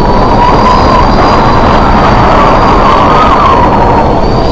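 Storm wind howling around a container ship at sea: a loud, steady rush with a wavering whistle over it.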